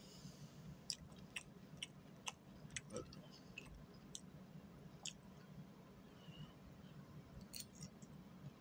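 Faint eating sounds: quiet chewing and scattered small clicks of a fork, over a low steady hum.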